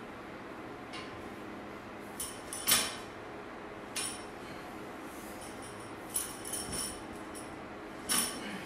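Plate-loaded barbell clanking during power cleans: a series of sharp metallic clinks and knocks as the bar is pulled off the floor and caught at the shoulders, the loudest about two and a half seconds in.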